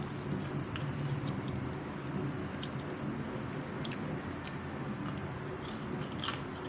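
A person chewing food close to the microphone, with small clicks and crackles of mouth sounds, over a steady low hum.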